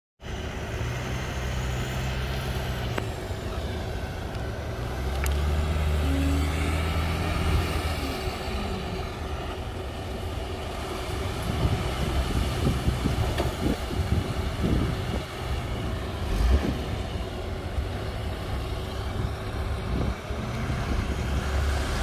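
Diesel dump truck engine running hard as the hydraulic hoist tips the body higher, its pitch rising for a few seconds. In the second half, the load of dirt and stones slides out of the tipped body with many irregular knocks over the engine.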